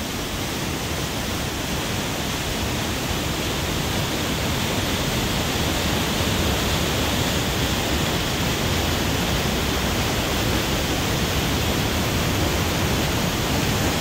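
Pailón del Diablo waterfall pouring into its plunge pool: a steady, even rush of falling water, growing slightly louder over the first few seconds.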